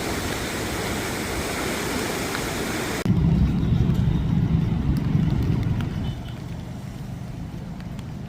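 A steady rushing roar of floodwater that cuts off abruptly about three seconds in. A low rumble follows, louder for a few seconds and then easing to a steady lower level.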